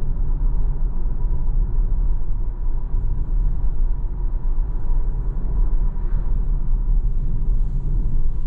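Steady low road and tyre rumble inside the cabin of a Tesla Model Y Performance on 21-inch wheels, cruising at around 70 km/h. A faint steady high tone runs above it.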